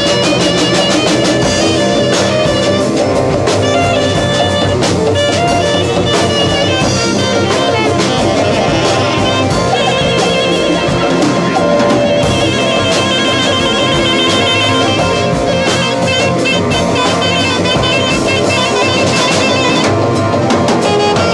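Live band playing: a saxophone melody over a drum kit, with the rest of the band accompanying.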